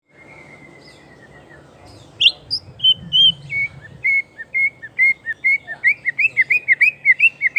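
White-rumped shama (murai batu) singing: a soft falling whistle, then loud sharp notes about two seconds in, building into a fast run of repeated rising-and-falling whistled notes, about three to four a second by the end.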